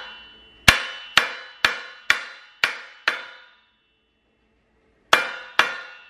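Sharp knocks as a bottom bracket bearing is driven into a BMX frame through a wooden block, the metal frame ringing briefly after each blow. Six strikes come about half a second apart, then after a short pause two more.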